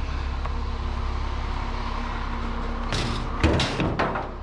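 A cluster of clattering metal knocks about three seconds in, as a salvaged aluminium bicycle part is handled and set down. Underneath is the steady low hum of an idling vehicle engine.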